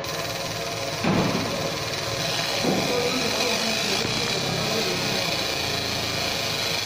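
Fiber laser marking machine running as it marks a metal plate: a steady mechanical hum and high whine from the marking head and its cooling fans. There is a short thump about a second in and another near the three-second mark.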